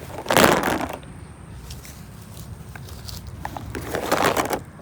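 Slime being squeezed and handled in two noisy squishing bursts, one about half a second in and one near the end, with a few small clicks between them.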